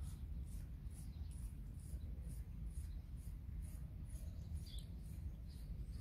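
Quiet shoreline ambience: small birds chirping, a thin high note repeating about three times a second, over a low steady rumble, with one short higher call about five seconds in.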